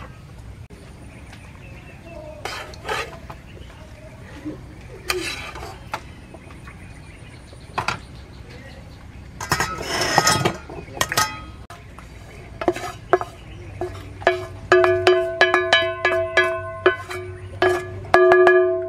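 Metal tongs and a spatula clinking and scraping against a stainless steel pot while stir-fried noodles are tipped in from a wok and tossed. In the last five seconds a quick run of knocks sets the steel pot ringing.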